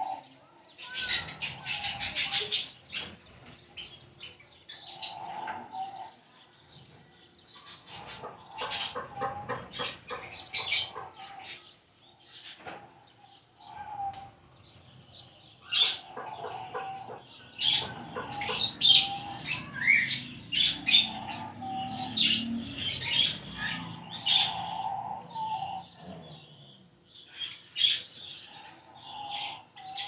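A flock of lovebirds chirping and calling over one another in short sharp clusters, with bursts of wing flapping as birds move around the aviary.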